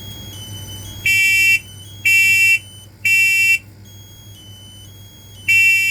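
Kidde KN-COPE-IC combination smoke and carbon monoxide alarm sounding its test alarm in the three-beep fire pattern: three loud half-second beeps about a second apart, a pause, then the next round starting near the end. Fainter, higher short tones sound in the gaps between the beeps.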